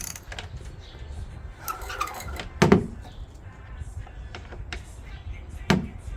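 Tool and part handling on a lawnmower rear wheel being tightened with a ratchet: scattered light clicks and two heavy knocks, one under halfway in and one near the end.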